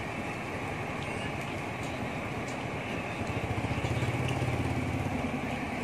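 Crane truck's engine running, driving the hydraulic crane as it holds and swings a small truck. It grows louder and heavier from about three seconds in.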